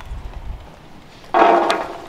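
Shelled peanuts dropped onto a stainless steel plate, a sudden clatter about one and a half seconds in that dies away within half a second.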